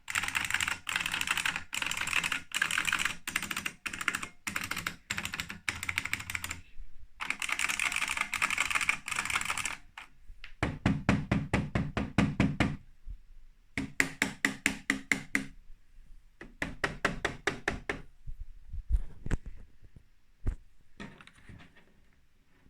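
IBM Enhanced Keyboard (part no. 1389969) buckling-spring keys clicking under fast typing for about ten seconds. After that come rapid runs of evenly spaced keystrokes with a deeper thud, thinning to a few scattered, fainter presses near the end.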